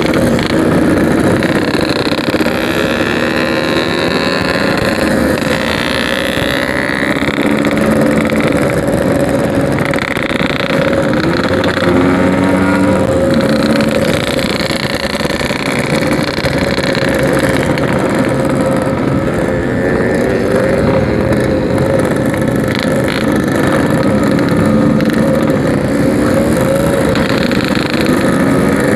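Yamaha RX-King's 135cc two-stroke engine and exhaust running while riding, with the revs rising and falling.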